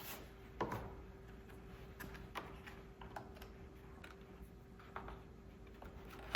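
Light, irregular clicks and taps of plastic seat trim and the power seat switch being handled, over a faint steady hum.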